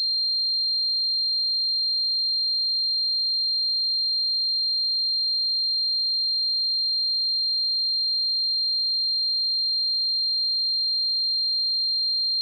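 A single steady high-pitched pure tone, held without any change: a synthesized sine tone simulating the ringing of tinnitus.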